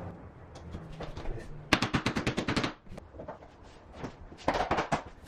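Hammer tapping quickly on the edge of a vinyl click-lock plank to seat the locking joint tight. There are two quick runs of light, sharp taps, about ten a second: the first about two seconds in, the second near the end.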